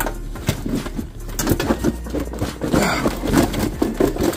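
Crayfish (rock lobsters) tipped out of a plastic dry bag into a stainless steel sink, their shells clattering and scraping on the metal in a run of irregular knocks while the bag rustles.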